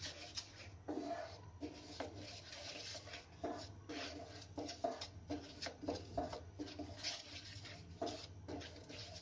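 Wooden spatula stirring and scraping a thick milk-powder mawa mixture around a nonstick frying pan, about two strokes a second, as the mawa is cooked down to thicken.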